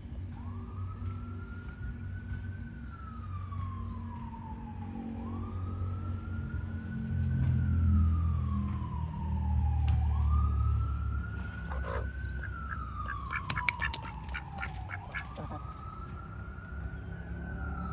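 A siren wailing, its pitch rising quickly and then sliding slowly down, over and over about every five seconds. A low rumble swells in the middle, and a short run of clicks comes about two thirds of the way in.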